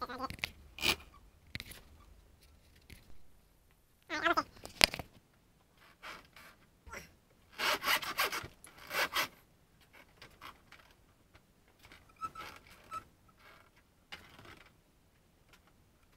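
Off-brand ProTaper-style grip being forced and twisted onto a scooter handlebar: irregular rubbing and scraping, with a short squeak about four seconds in and a denser run of scraping around the middle.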